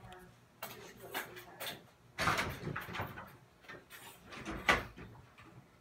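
Several sharp knocks and clattering sounds, the loudest a little over a second before the end, with faint voices in the background.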